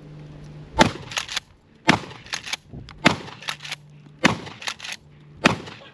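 Remington 870 Tactical pump-action shotgun fired five times in quick succession, about a second and a bit apart. Between the shots come the quicker clacks of the pump being racked back and forth.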